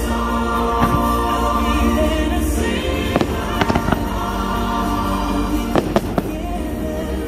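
Aerial fireworks bursting, a string of sharp bangs and crackles heard mostly in the second half, the loudest pair about six seconds in, over the show's music playing steadily.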